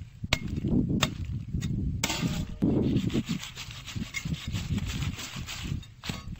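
A curved billhook blade chopping and sawing through a vavval fish's tail fin on a wooden log. A few sharp knocks of the blade striking the wood come in the first two seconds, then a long scraping, rasping stretch as the blade saws through, and one more knock near the end.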